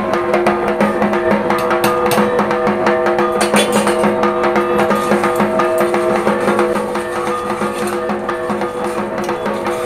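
Background music: plucked strings over sustained tones, with a steady drum beat.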